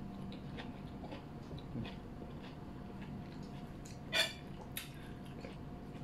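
Faint close-up eating sounds: chewing and soft wet mouth noises with small scattered clicks as bulalo beef is picked apart by hand and eaten, over a faint steady hum. One short louder mouth sound comes about four seconds in.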